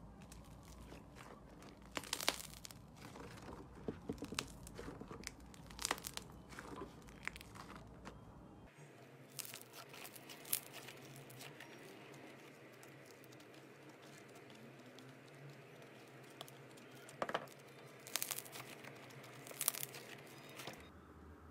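Thick glossy slime being squeezed, folded and pulled apart by hand, with irregular sticky crackles and pops and a few louder snaps as the slime tears.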